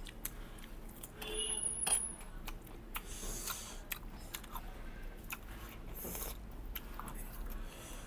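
A person chewing and biting food close to the microphone, with scattered sharp clicks and brief crunches.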